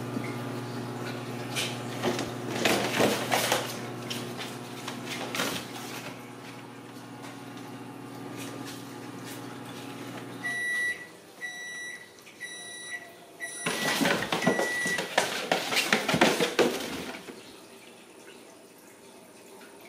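Ragdoll kittens scrabbling and pouncing on an empty cardboard soda-can box on a tile floor, with scratchy rustles and knocks of the cardboard. A steady appliance hum in the background stops about halfway through, and a string of high beeps from a kitchen appliance follows.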